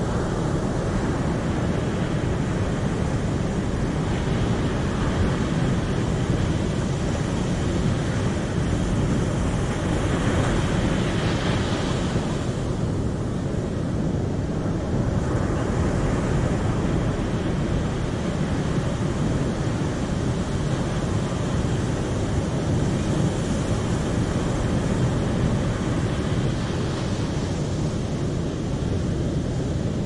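Ocean surf breaking on a sandy beach: a continuous wash of waves that swells louder around ten to twelve seconds in and again near the end. Wind rumbles on the microphone underneath.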